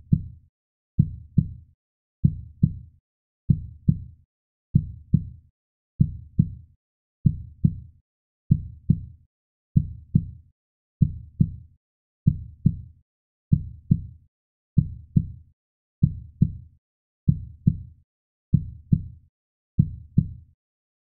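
Heartbeat sound effect at a normal resting pace: paired low lub-dub thumps repeating steadily, a little under one beat per second, stopping shortly before the end.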